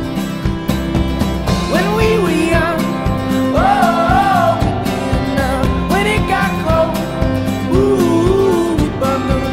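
Background music: a country-style song with guitar and a steady beat under long, wavering melody notes.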